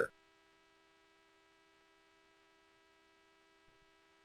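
Faint steady electrical hum made of several fixed tones, with nothing else above near silence.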